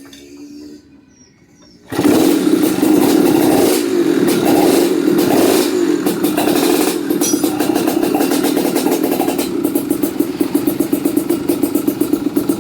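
A Kawasaki Ninja motorcycle engine in a trail bike catches abruptly about two seconds in, just after its newly fitted electric starter is used, and runs. It is blipped up a few times, then settles into a running beat with a quick, even pulse.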